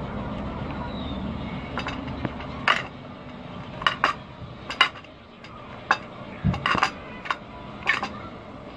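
A steel kitchen knife clicking and clinking against a ceramic plate as a chili is sliced over it: about ten sharp, irregular taps starting about two seconds in. A low steady rumble fades out over the first two seconds.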